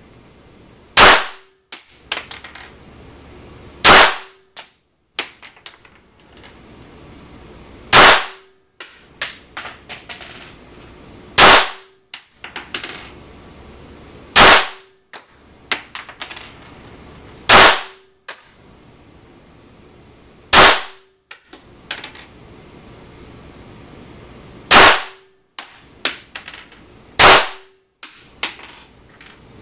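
Glock 21 SF .45 ACP semi-automatic pistol fired in slow single shots, nine shots about three seconds apart, with lighter clicks and knocks between them.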